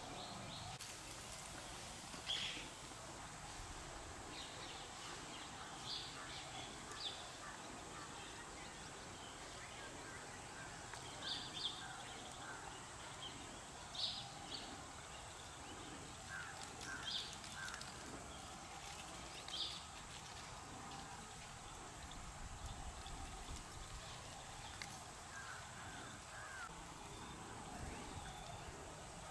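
Faint outdoor ambience with short, high bird calls scattered every few seconds, a few standing out louder, over a steady background hiss.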